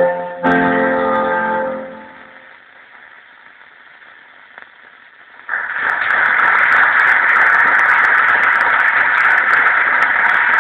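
FM radio receiving a distant tropo-propagated broadcast: classical music ends and fades out about two seconds in, leaving a faint hiss. Some five seconds in, a loud, steady hiss with scattered crackles sets in suddenly, the noise of the weak long-distance signal.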